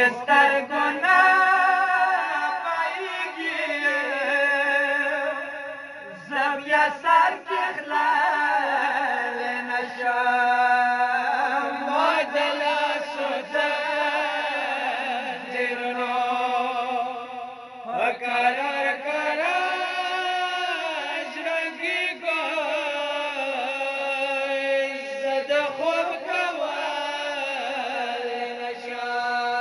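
Two men's voices chanting a Pashto noha, a Shia mourning lament, in long drawn-out melodic lines with brief breaks for breath.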